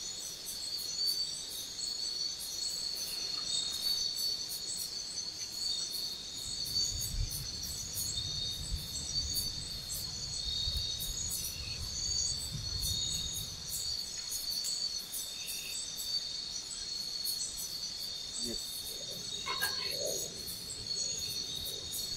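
Chorus of tropical forest crickets and other insects: a steady high-pitched trill with fast, regular pulsing chirps above it. A faint low rumble comes and goes in the middle.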